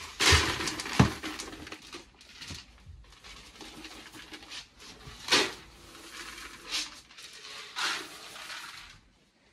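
Horse feed being prepared in plastic buckets: a clatter and a thump in the first second, then several short rattling bursts as dry feed and containers are handled.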